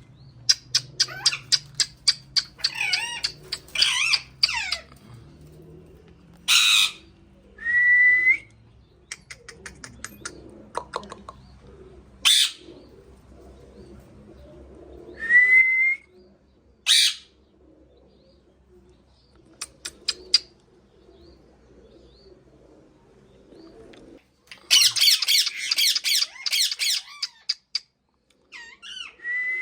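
Pet parrot calling. It makes fast clicking chatter, short harsh squawks and a few short rising whistles, then a longer burst of harsh chatter near the end.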